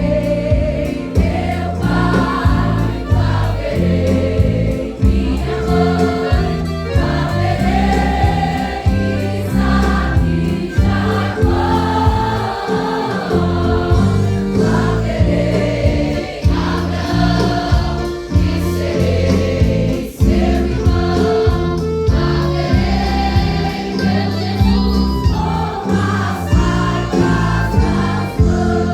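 Choir singing a Pentecostal gospel praise song over instrumental backing with a steady beat.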